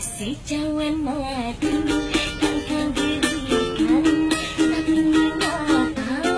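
A woman singing while strumming a kentrung, a small ukulele-type instrument, in a steady rhythm; her voice carries a gliding melody over the strums.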